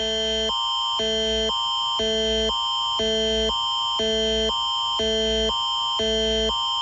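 Canadian Alert Ready attention signal: two chords, one lower and one higher, alternating every half second, with a steady high tone sounding through both. It is the tone that announces an emergency alert on broadcast radio.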